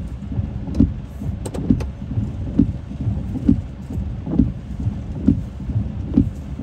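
Car windshield wipers sweeping through rain, a dull thump about once a second at each stroke, over a steady low rumble inside the car.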